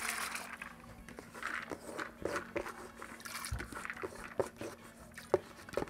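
Washed yellow split peas tipped from a plastic bowl into a pot of hot water, with a brief splash at the start. Scattered light clicks and knocks follow, with one low thump about halfway through and a sharp click near the end.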